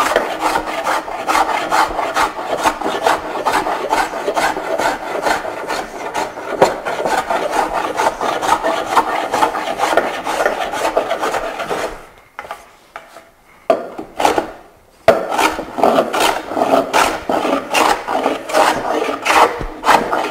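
A No. 5 jack plane set for an aggressive cut, shaving a hardwood board in a rapid run of short rasping strokes, diagonal and across the grain: rough stock removal to hollow the board's centre. The strokes stop for about three seconds a little past halfway, then resume.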